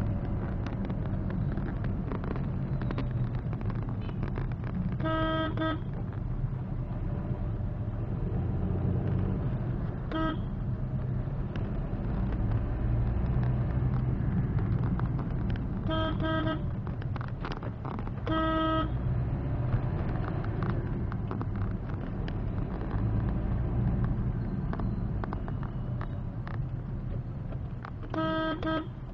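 Steady low engine and road rumble inside a Maruti Suzuki Swift's cabin while driving, with a vehicle horn tooting five times in short single-pitched beeps spread through the stretch.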